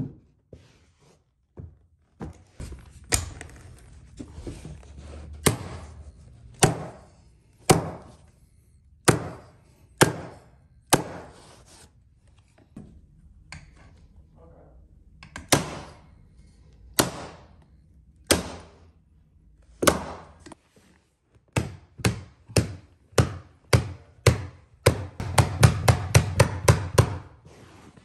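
Repeated sharp tool strikes from fastening a stair runner: single hard snaps about a second apart, then a fast run of strikes, about five a second, near the end.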